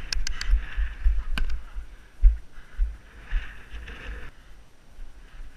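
Wind buffeting a body-worn GoPro's microphone in uneven low gusts, with a few sharp clicks or knocks in the first second and a half.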